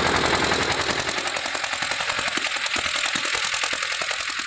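Ship's emergency fire pump engine running with a fast, even clatter under a steady hiss while the pump feeds a fire hose jet. About a second in, the deep part of the sound falls away, leaving mostly the hiss and clatter.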